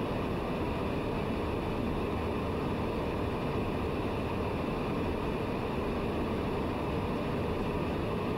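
Steady cabin noise of a TBM 900 on final approach: its Pratt & Whitney PT6A turboprop running at approach power, with propeller and airflow noise, holding an even level throughout.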